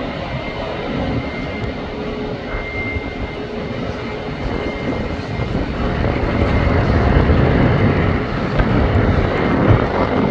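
Boeing 777-300ER's twin GE90 turbofan engines on final approach, a steady jet rumble that grows louder over the second half as the airliner comes down close to the runway. A faint thin whine sits over the rumble for the first few seconds.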